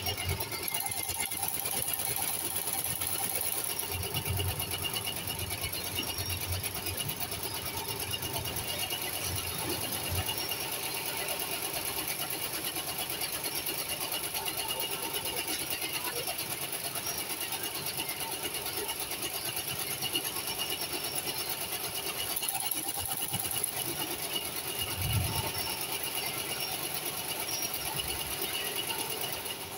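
Industrial sewing machine running steadily as it stitches knitted fabric, with the steady hum of other factory machines around it.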